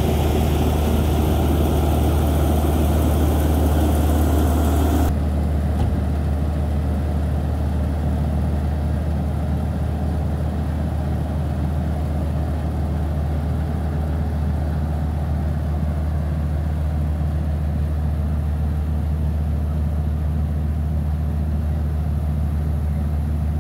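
Hitachi 210 excavator's diesel engine running steadily at a low idle. About five seconds in the sound suddenly gets quieter and duller, then keeps the same steady low hum.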